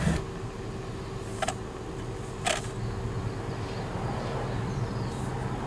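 Steady low engine and road noise inside a moving car, with two short sharp clicks about a second apart near the middle.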